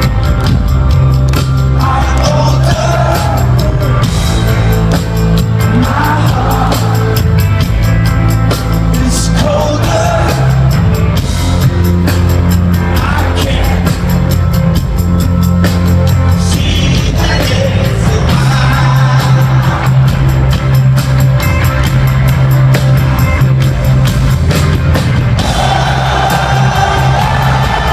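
Loud rock music with a singer, over heavy bass and a drum beat.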